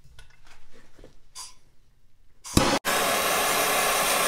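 Faint handling sounds, then about two and a half seconds in a MAP-Pro gas hand torch lights with a sudden burst and burns with a steady, loud hiss. The torch is heating a connecting rod's small end so the piston pin can be pushed in.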